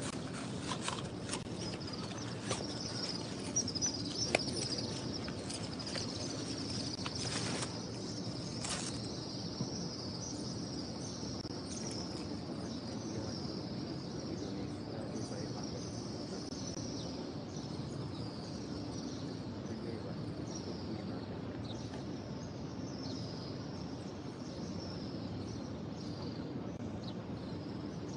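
Steady open-air ambience of a large mosque courtyard: a low hum with continual high-pitched chirping over it, busiest in the first ten seconds. A few light clicks fall in the first several seconds.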